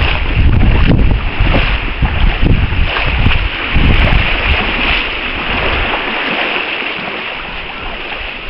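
Wind buffeting the microphone in heavy gusts, easing about six seconds in, over a steady wash of water.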